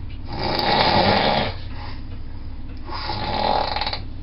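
A person snoring: two loud snores, about two and a half seconds apart, the first the louder.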